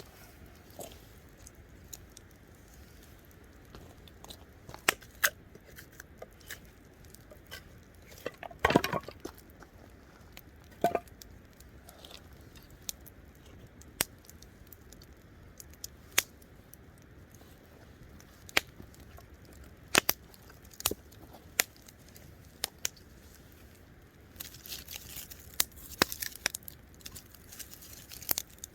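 Wood campfire crackling: scattered sharp pops and snaps a second or more apart, with a denser run of crackling near the end.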